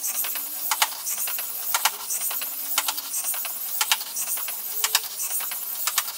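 MG996R servos of a 3D-printed robotic snake working through an inchworm motion: irregular sharp clicks and ticks, roughly two a second, over a steady hiss.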